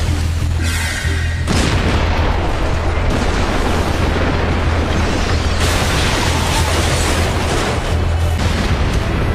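Anime attack or explosion sound effect: a loud, continuous booming rumble with a strong low drone, with music underneath. A higher rising tone rings over it briefly about half a second in.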